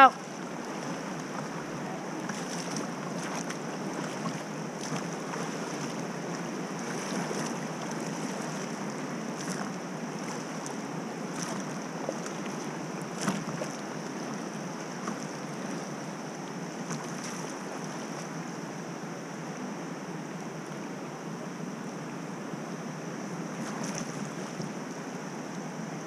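River water moving and lapping around an inflatable boat drifting on calm water: a steady rushing hiss with a few light splashes or knocks scattered through it.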